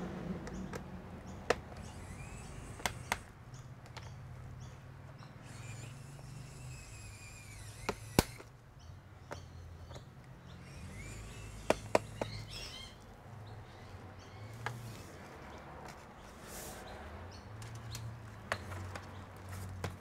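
Snap-fit clips of a Dell Inspiron laptop's bottom cover popping loose as the cover is pried off: a string of sharp, separate clicks, some in quick pairs.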